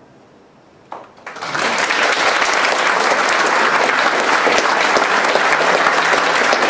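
Theatre audience breaking into applause about a second in, building quickly and then clapping steadily.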